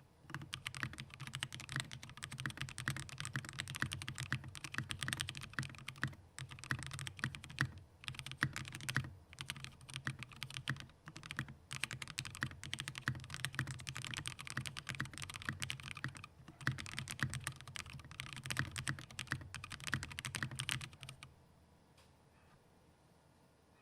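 Fast, continuous typing on a Squishy65 custom mechanical keyboard with an aluminium plate, lubed and filmed Durock POM linear switches and KAT-profile blank keycaps: rapid key strikes with a deep, muted thock and a few brief pauses. The typing stops near the end.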